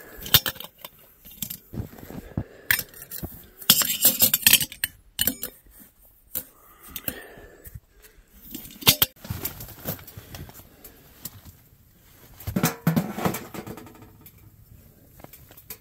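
Metal pot clanking and scraping as snow is scooped into it to be melted for water, a run of sharp knocks and clinks with a few longer scraping stretches.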